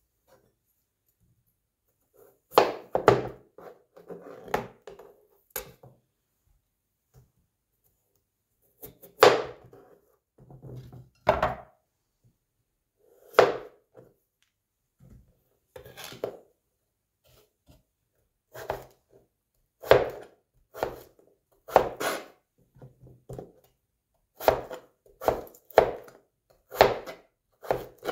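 Kitchen knife and crinkle cutter cutting peeled raw potatoes on a cutting board: single knocks of the blade striking the board, one every second or two, with pauses between.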